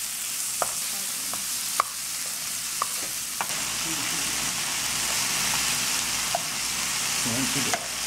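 Diced fish, tomato, sweet pepper and onion sizzling steadily as they fry in a nonstick pan. A wooden spoon stirs them, knocking sharply against the pan several times in the first few seconds.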